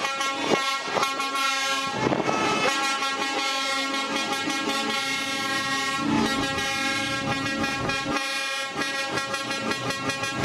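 Truck air horns sounding in long, loud chords, changing pitch a few times.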